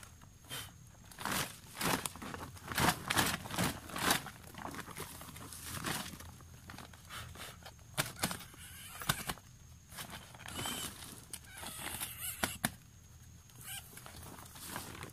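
Plastic bag crinkling and rustling as it is handled, in irregular bursts, together with rustling of dry grass underfoot.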